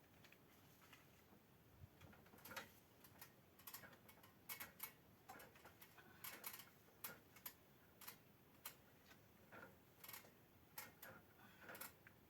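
Faint, irregular sharp clicks and ticks, one or two a second, over near silence.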